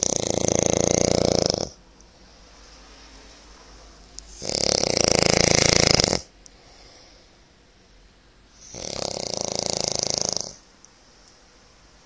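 A man snoring in his sleep: three long snores of nearly two seconds each, about four and a half seconds apart, with faint breathing between them.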